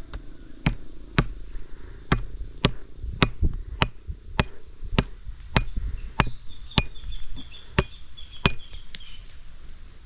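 An axe striking the top of a wooden stake: a steady run of about fifteen sharp knocks, roughly two a second, that stops shortly before the end.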